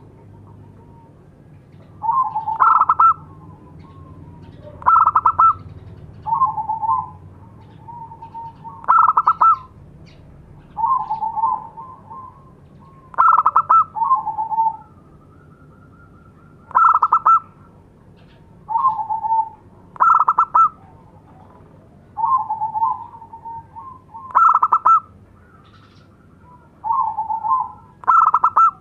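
Zebra dove (local perkutut) calling: short bursts of rapid cooing notes repeated every two seconds or so, some phrases pitched higher and louder than others.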